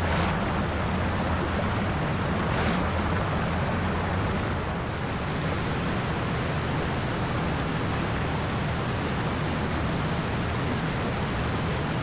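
Shallow beck water rushing over flat rock ledges and small cascades: a steady rush of running water.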